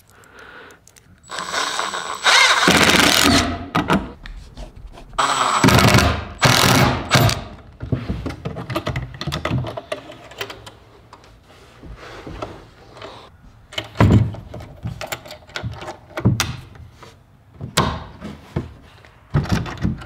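Cordless drill driving screws in two bursts of about two seconds each, followed by a few sharp clicks and knocks as a metal draw latch is fitted to a wooden frame.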